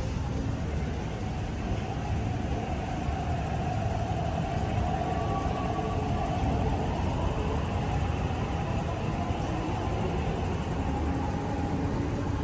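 MTR East Rail Line R-Train electric multiple unit leaving a station platform: a steady rumble of wheels and running gear, with a faint motor whine that comes up in the middle.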